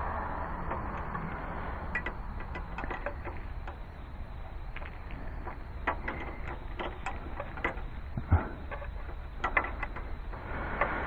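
Irregular metal clicks and taps of a wrench on the 9/16 fitting of a power steering high-pressure hose as it is given its final tightening, with one sharper knock about eight seconds in.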